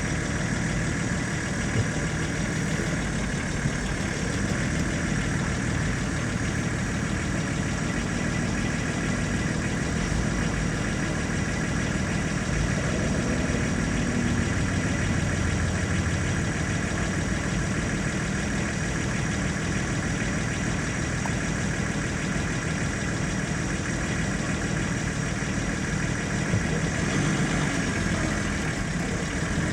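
Car engine running steadily at low revs, with a continuous low rumble.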